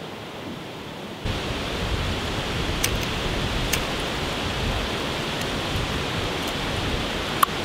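Steady wind rushing through the trees, which gets louder suddenly about a second in. A few faint sharp clicks sound over it.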